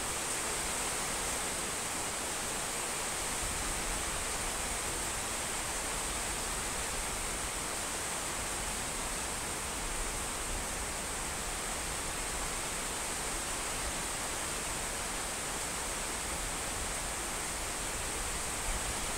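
Steady rain falling, an even hiss with no thunder, crowing or birdsong standing out.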